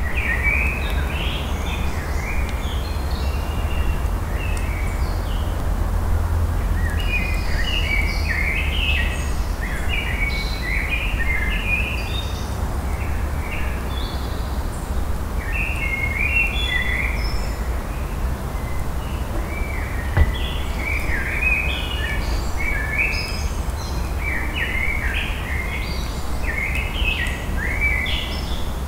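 Small birds chirping and singing in many short, quick phrases over a steady low rumble, with a single sharp click about two-thirds of the way through.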